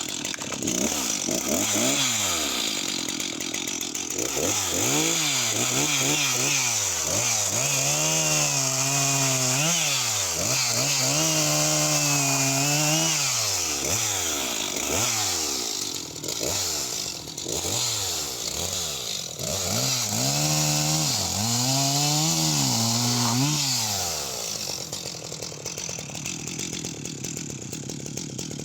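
Jonsered 2054 Turbo two-stroke chainsaw cutting wood at full throttle, its engine pitch sagging under load in each cut and climbing back between cuts, several times over. Near the end it drops back to a steady idle.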